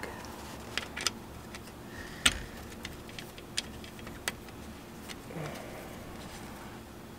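Scattered small metallic clicks and taps of a hex key seating in a bolt head and a steel fender-mounting clamp being handled on a bicycle frame. The loudest click comes a little over two seconds in.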